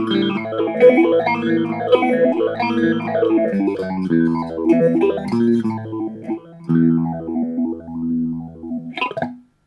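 Electric guitar played through a Boss PH-3 phaser pedal: held chords changing every second or so, with the phaser's sweep rising and falling about once a second. A short scrape about nine seconds in, then the playing stops.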